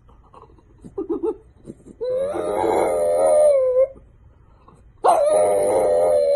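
French bulldog howling: two long, wavering howls, the first about two seconds in and the second starting near the end, with a few short soft whimpers before them.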